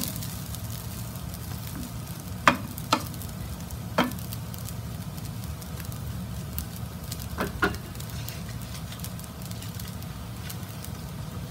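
Fried rice sizzling in a nonstick frying pan while a spatula stirs and scrapes through it, with a few sharp knocks of the spatula against the pan.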